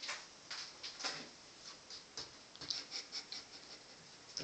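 Faint, irregular light clicks and taps of a kitten pawing at a bottle cap on a bathtub's hard surface, with a quicker run of taps in the second half.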